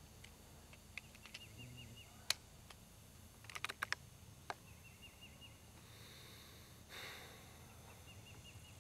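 Faint clicks and light knocks of a Benjamin Fortitude PCP air rifle's bolt and magazine being worked: a sharp click about two seconds in, then a quick cluster of clicks a little later. A faint, high, rapid chirping trill repeats three times in the background.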